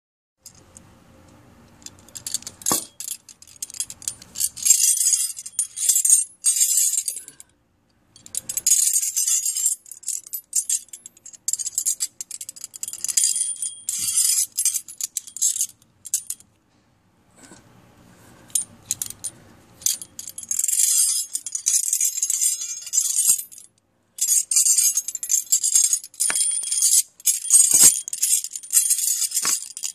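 Metal horseshoe puzzle, its chain links, ring and horseshoes rattling and clinking together as it is twisted in the hands, in several long jangling stretches with short pauses.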